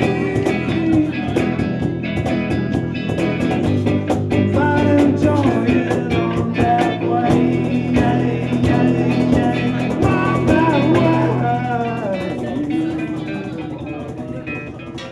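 A live band: a man singing into a microphone over acoustic guitar, electric bass and a steady percussion beat, the music growing quieter near the end.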